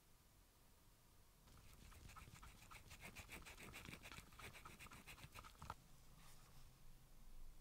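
Faint rapid scraping and ticking of a wooden stir stick against the walls of a small plastic measuring cup as resin is mixed. It starts about a second and a half in and stops a little before six seconds.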